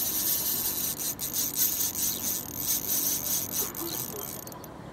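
Spinning reel working as a hooked tambacu is played on a bent ultralight rod: a rapid, uneven run of high-pitched rasping strokes that stops shortly before the end.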